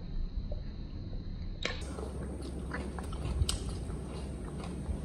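Pet monkey chewing and biting food, with scattered small clicks.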